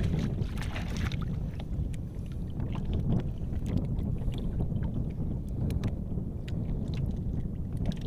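Sea water lapping and sloshing against the side of a small outrigger boat, with wind rumbling on the microphone. Scattered small splashes and drips come from sea grapes being pulled up out of the water by hand.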